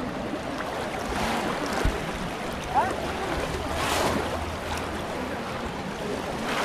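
Water sloshing and splashing steadily around the legs of many people wading waist-deep through it, with two brief knocks about two and three seconds in.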